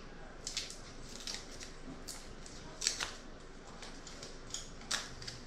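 Small clicks and rustles of a motorcycle's wiring harness being handled: wires and plastic connectors pulled and worked apart by hand, a few sharp snaps scattered through, the loudest about three seconds in.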